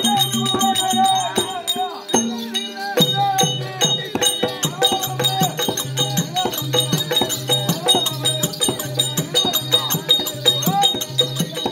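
Therukoothu street-theatre accompaniment: hand drums beating a quick, steady rhythm with jingling metal percussion over a steady drone and a wavering melody line. The drumming breaks off briefly about two seconds in, then picks up again.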